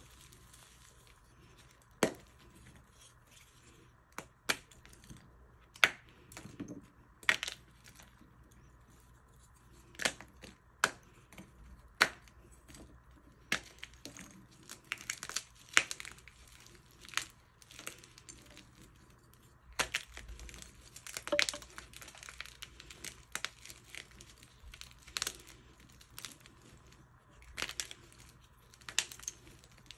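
Dyed gym chalk blocks being snapped and crumbled by hand: irregular sharp cracks and crunches, a few at a time, coming thicker through the middle of the stretch.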